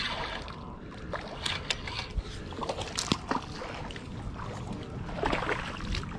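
Scattered clicks and rattles from handling a spinning reel that has come apart in hand, with water splashing as a hooked bass is drawn toward the bank. A louder burst of noise comes about five seconds in.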